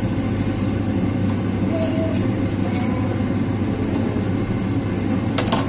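Steady low machine hum, with a short clatter about five and a half seconds in.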